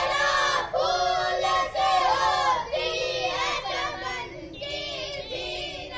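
A boy's voice chanting a dua to a sung melody, phrase by phrase, as the lead line of a school assembly prayer that the assembled students answer in unison.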